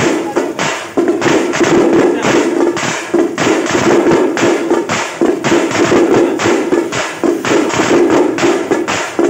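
Music with fast, steady percussion, about four strokes a second, over a held pitched tone.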